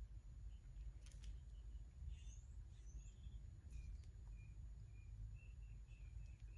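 Near silence: a low room hum, with a few faint clicks and, in the second half, a run of faint short high chirps about half a second apart.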